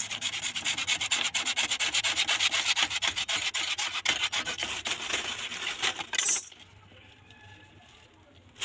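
A hand-held hacksaw blade sawing through CPVC pipe with quick, rapid back-and-forth strokes. The sawing stops about six seconds in.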